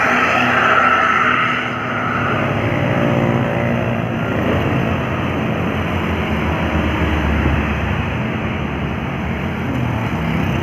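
Road traffic: a passing vehicle's engine drone and tyre noise, with a hiss that fades about two seconds in and the low engine sound strongest around six to eight seconds in.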